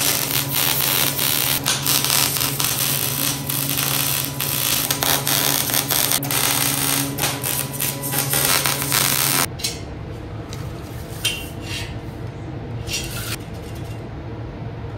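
Wire-feed (MIG) welder crackling and sizzling as it lays a bead on steel frame tubing, with a steady electrical hum under it. About nine and a half seconds in the welding stops abruptly, leaving only a few light metallic clicks.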